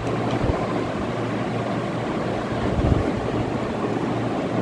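Steady rushing hiss with a faint low hum underneath, unchanging throughout.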